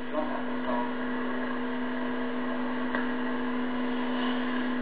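A steady electrical hum at one unchanging pitch with a fainter overtone, over a continuous hiss.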